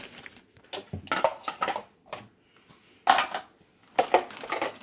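Plastic bowls and toy kitchenware clattering and knocking together as they are handled, in three short spells of clicks.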